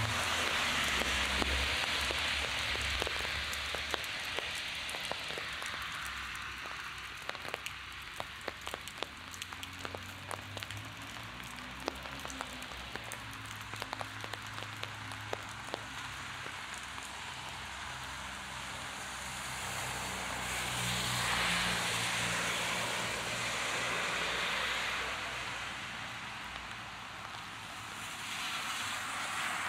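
Heavy rain falling steadily, with many close, sharp drips ticking through the middle. Motor traffic passes on the wet road, its engines running low and its tyres hissing, swelling about twenty seconds in and again near the end.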